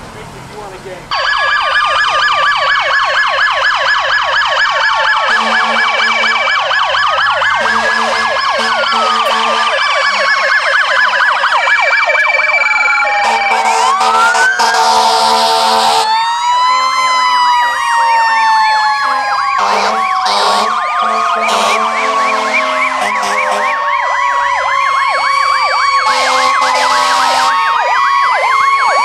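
Several fire engines and emergency vehicles sounding their sirens at once, starting suddenly about a second in. Electronic wails and fast yelps overlap with a long, slowly falling siren tone, and horn blasts come now and then.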